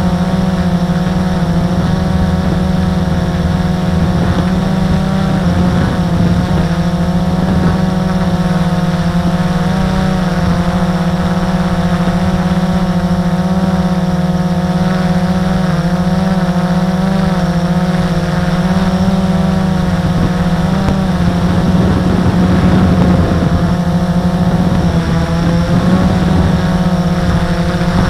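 Drone's motors and propellers humming steadily while it hovers, a strong droning tone whose pitch wavers slightly.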